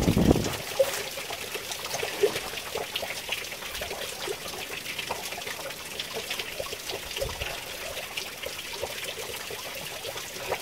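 Water trickling, with many small irregular drips and plinks over a steady splashing hiss, likely meltwater running off ice. A brief low rumble sounds right at the start.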